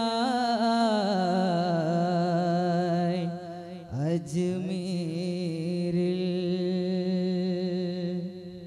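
Male qawwali singer holding long, wavering notes through a microphone, a slow wordless vocal line with no drum. A second long note starts about four seconds in and fades near the end.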